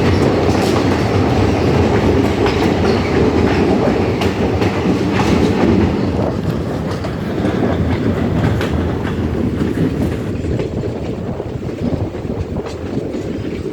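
A steady, loud rumble with scattered sharp clicks and knocks, easing slightly toward the end.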